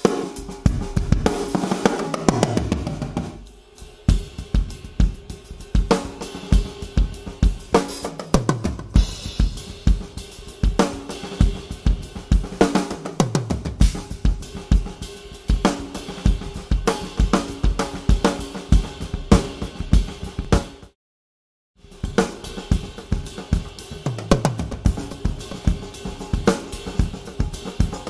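Acrylic drum kit played live in a groove with fills: kick drum, snare and hi-hat in a steady pattern, with several cymbal crashes ringing out, picked up by a Yamaha EAD10 drum microphone. The sound cuts out completely for under a second about three quarters of the way through.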